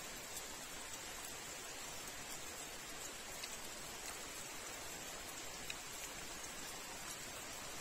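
Steady hiss of light rain falling, with a few faint, soft clicks scattered through it.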